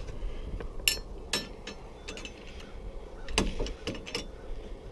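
Sharp, irregular mechanical clicks and clacks from snowmobile auger mounts being closed up by hand, about seven in all.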